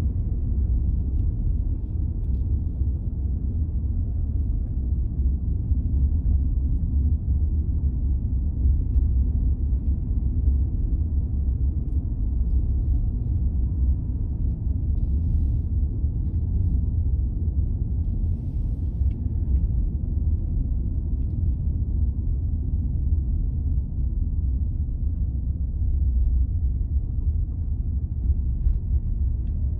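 Steady low rumble, even and unbroken throughout.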